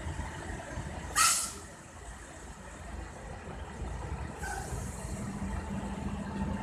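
Emergency vehicle engines idling with a steady low rumble. About a second in, air brakes let off a short, loud hiss, and a fainter hiss follows a few seconds later.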